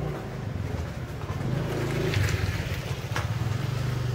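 A small motorbike engine running steadily, with two sharp clicks about two and three seconds in.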